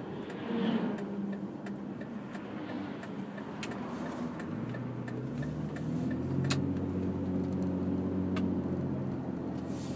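Inside a 2001 Jeep Grand Cherokee on the road: tyre and road noise with scattered light clicks and rattles. About five seconds in, the engine note comes up and steps higher, then holds, as the automatic transmission downshifts easily on a freshly tightened throttle cable and the engine pulls.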